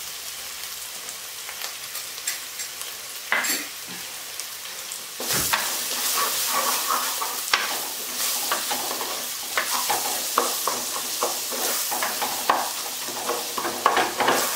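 Onion-tomato masala with freshly added spice powders sizzling as it fries in a black pot. About five seconds in, a wooden spatula starts stirring it, giving repeated scrapes and knocks against the pot over the sizzle.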